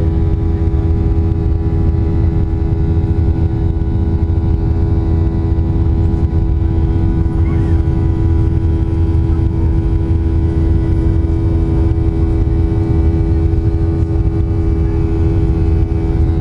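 Jet airliner's underwing turbofan engines at climb power after takeoff, heard from inside the cabin: a loud, steady drone with a constant hum over a deep rumble.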